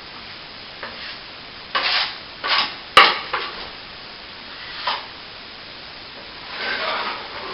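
Plastering hand tool scraping in several short, separate strokes, with one sharp tap about three seconds in.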